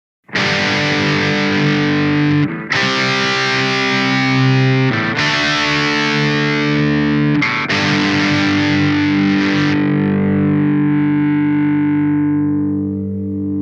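Charvel Desolation Skatecaster electric guitar through heavy distortion, four chords struck about every two and a half seconds. The last chord rings on and fades away.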